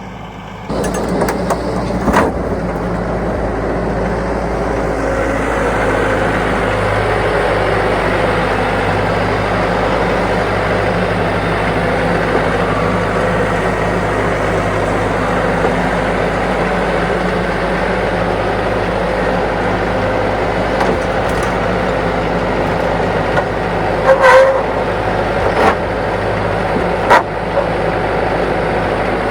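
A vehicle engine running steadily, with a sharp knock about two seconds in and a few more knocks or clanks near the end.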